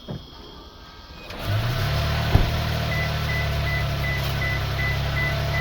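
Toyota Sequoia's twin-turbo V6 hybrid engine coming on about a second and a half in and running steadily, so the new marker lights can be tested. A high dashboard chime starts repeating about two to three times a second partway through.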